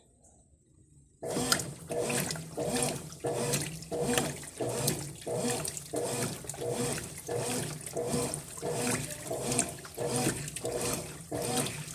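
Brastemp Ative 11 kg washing machine agitating towels in the rinse, its agitator swishing water back and forth. It starts suddenly about a second in, with about three strokes every two seconds.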